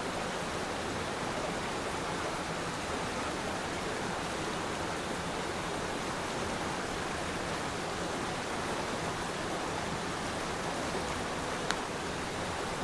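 Waterfall: water falling and rushing in a steady, even wash of noise. A single short click comes near the end.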